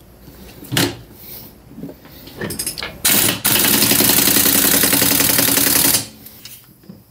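Pneumatic impact wrench tightening the swingarm pivot nut: a couple of short blips, then about two and a half seconds of loud, continuous rapid hammering that cuts off suddenly.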